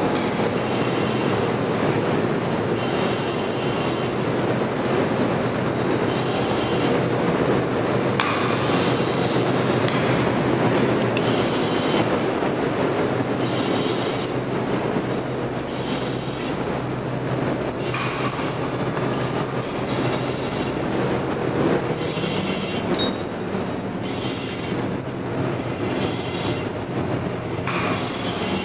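Plant machinery running steadily in a wastewater plant basement, with a high-pitched burst recurring about every two seconds over the constant noise.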